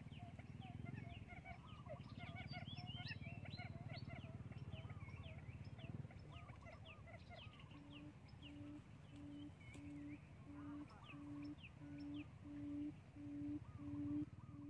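Small wild birds chirping, many quick short calls overlapping. From about eight seconds in, a low hooting note repeats about one and a half times a second, growing louder.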